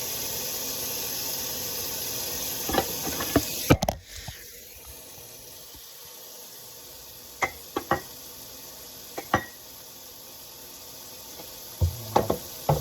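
Kitchen tap running into a sink, with dishes knocking together, then the water shuts off about four seconds in. After that, dishes and utensils are handled with scattered sharp clinks, a few at a time.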